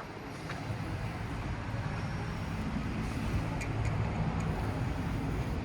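Steady low rumble of outdoor background noise, like distant road traffic, with a few faint clicks about two thirds of the way through.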